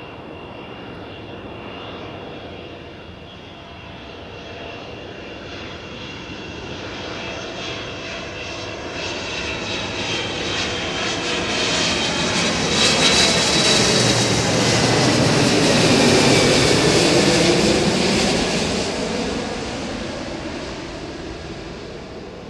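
A Boeing 777-200 airliner on final approach with its landing gear down, the noise of its two turbofan engines growing louder as it comes in. It is loudest as it passes overhead in the second half, then fades as the pitch sweeps down when it moves away.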